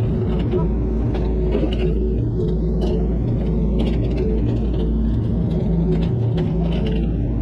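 Mini excavator's diesel engine running steadily under work, with scattered sharp knocks and clatters throughout.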